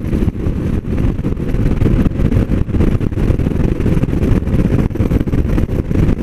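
Steady wind rumble buffeting the microphone of a moving motorcycle, with the bike's running noise underneath.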